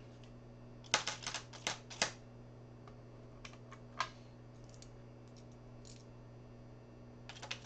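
Pennies clicking and clinking against one another as they are picked up and dropped into a paper coin roll tube, in scattered clusters of sharp clicks, over a faint steady low hum.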